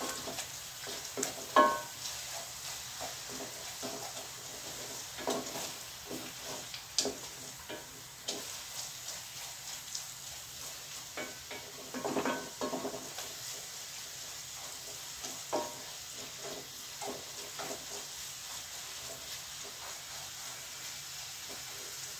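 Wooden spoon stirring flour into caramelized onions in a hot enamelled cast-iron pot, making a roux: irregular scraping strokes of the spoon over a soft, steady sizzle.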